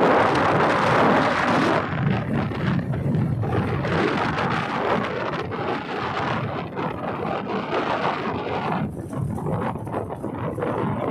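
Wind buffeting the microphone: a rough rushing noise, loudest in the first couple of seconds, then gustier with crackling.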